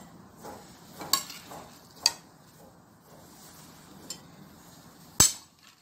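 Metal soup ladle scooping fruit salad and clinking against a ceramic bowl and the plates of a tiered serving platter: a few light clinks, then a sharper, louder knock about five seconds in.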